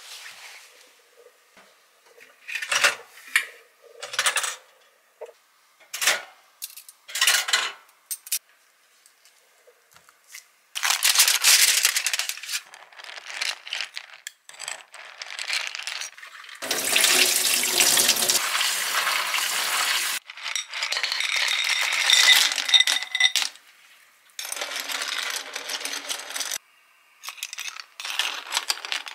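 Short rustles and knocks for the first several seconds, then bursts of running water and the clinking clatter of blood clam shells knocking together in a bowl as they are washed.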